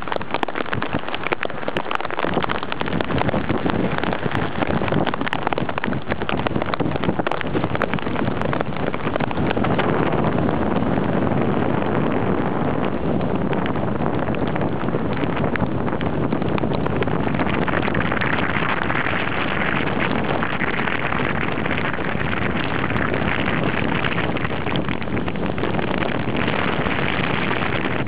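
Heavy storm surf breaking and surging against a seawall: a steady, continuous roar of rough sea, with wind blowing across the microphone.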